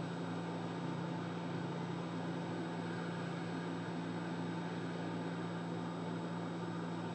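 Steady low hum with an even hiss, like a small fan running; no separate knocks or clicks.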